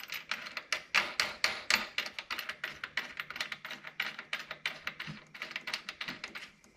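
Quick, light metal clicks, about five a second, as a nut with a lock washer is spun by hand onto a mounting bolt; they stop shortly before the end.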